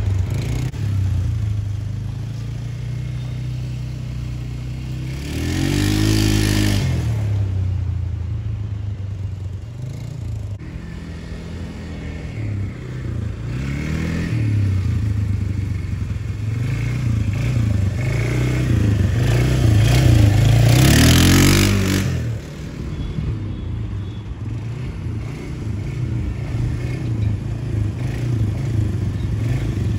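A 330 cc quad bike (ATV) engine running while it is ridden, its pitch rising and falling as the throttle is opened and eased. It revs up strongly about six seconds in, again around fourteen seconds, and hardest at around twenty to twenty-two seconds.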